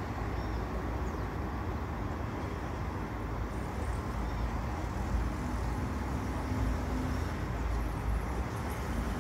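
Street traffic passing below: a steady rumble of cars and engines.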